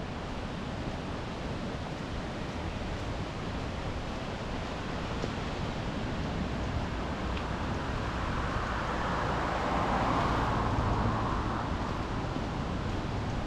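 Sea surf washing on the shore with wind on the microphone: a steady hiss, with one wave swelling and breaking about two-thirds of the way through.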